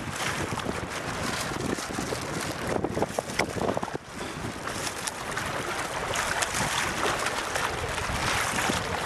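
Wind buffeting the microphone over water moving around a coracle on a river, with a short cluster of sharp crackles about three seconds in.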